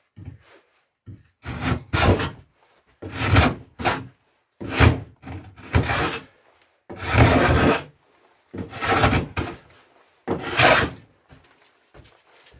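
Hand plane pushed along a board clamped in a wooden vise: about seven separate scraping strokes, each under a second, with short pauses between. The plane's blade is one its owner says needs sharpening.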